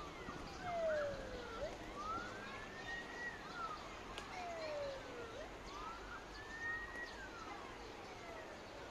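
Emergency-vehicle siren in a slow wail: the pitch climbs to a high plateau and then sinks low before climbing again, about once every three and a half seconds.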